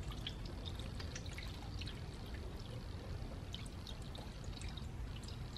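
Green coolant pouring in a steady stream from a plastic jug into the filler neck of an aluminium radiator, with light splashing.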